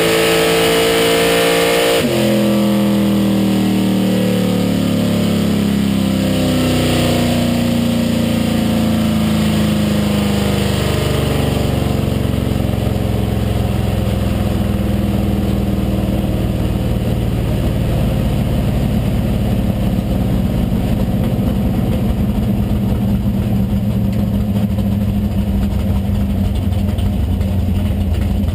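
A 1981 Chevrolet Malibu drag car's engine heard from inside the cabin: running at high revs at the end of the pass, then the throttle is closed about two seconds in and the engine note falls away steadily as the car slows, settling into steady running at low revs for the rest of the time.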